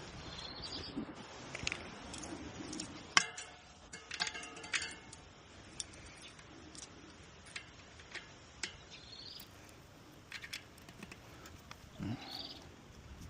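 Hands working on a bicycle tyre and inner tube during a puncture repair: scattered clicks and rustles, with a sharp ringing clink about three seconds in and two more a second or so later.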